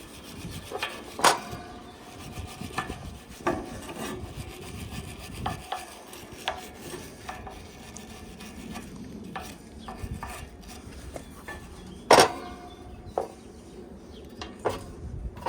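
Small brush scrubbing the rusty shaft of a condenser fan motor, with scattered metallic clicks and knocks. One sharp knock about twelve seconds in is the loudest sound.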